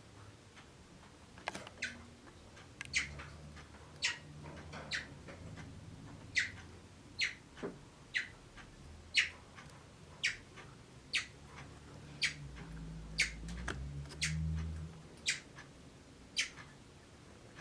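A bird chirping over and over: short, sharp notes that drop quickly in pitch, about one a second at an uneven rhythm, over a faint low hum.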